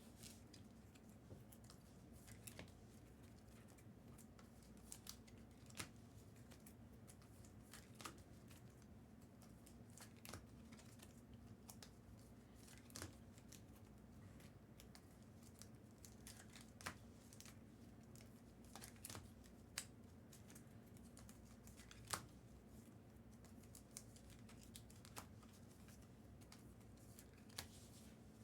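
Near silence with a steady low hum and faint, scattered clicks and rustles of trading cards being handled, one every second or few.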